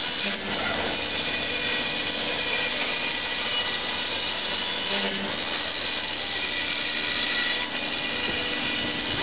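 Spindle of a gantry CNC router, with a 5.5 kW motor, running at speed with a steady whine while its long cutter mills EPS foam.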